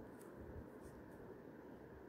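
Near silence: faint steady room hiss, with a few soft ticks and rubbing as fingers press slime onto a plastic sheet.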